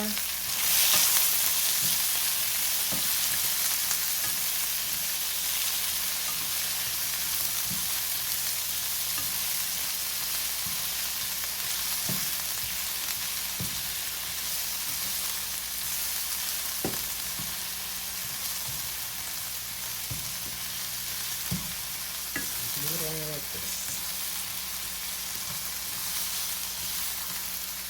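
Chopped onions and tomatoes sizzling steadily in a pan of hot oil, stirred with a spatula that clicks against the pan now and then. The sizzle is loudest about a second in.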